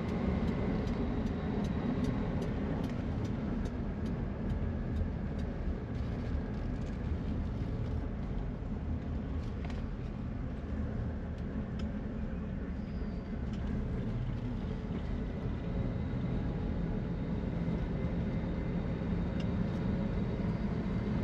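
A 1966 AMC Marlin driving along at a steady cruise, heard from inside the cabin: a steady low rumble of engine and road noise.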